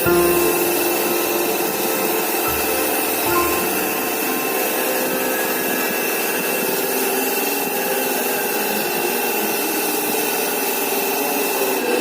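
A power tool running steadily through the whole stretch, a continuous noisy whir with a thin high whine over it.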